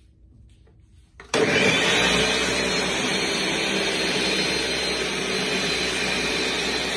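Countertop blender switched on about a second in, starting abruptly and then running steadily at high speed, blending a runny flour-and-water batter.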